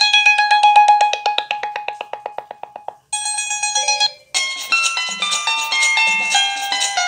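Kyocera DuraXE phone ringtones. A fast trill of repeated bell-like notes fades out about three seconds in and briefly starts again, then a different melodic ringtone begins about four seconds in.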